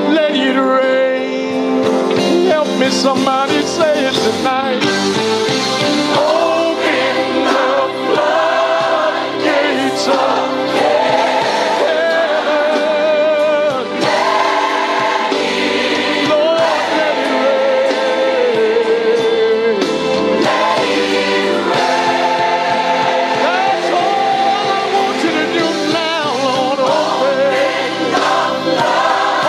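Gospel worship song with a choir singing over sustained keyboard chords.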